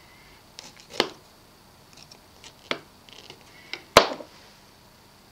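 Kitchen knife cutting through a raw cauliflower floret's stem on a plastic cutting board: a few short sharp knocks about one and three seconds in. The loudest knock, about four seconds in, is the knife being set down on the board.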